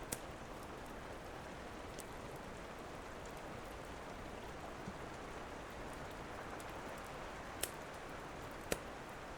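Steady rain with a wood fire crackling over it: a handful of scattered sharp pops, the loudest near the end.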